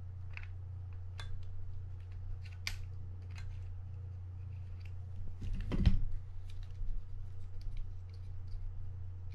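Small metal clicks and taps of a Mitchell 300 spinning reel and hand tools being handled while its rotor is taken off, with one louder knock a little before six seconds in. A steady low hum runs underneath.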